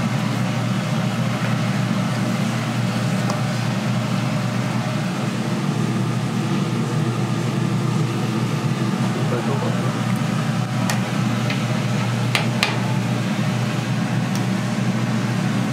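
A steady low mechanical hum over a constant background noise, with a few sharp clicks about eleven and twelve to thirteen seconds in.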